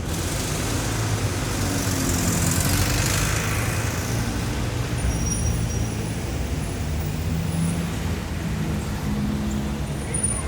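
Dense city traffic: engines running and tyres on asphalt, a steady mix of low hum and road hiss, with a louder whoosh of tyre noise swelling about two to three seconds in.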